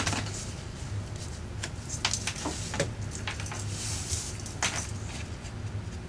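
Sticky Strip double-sided adhesive tape being pulled from its roll and pressed onto cardstock, with light rustles and small clicks of paper handling over a faint low hum.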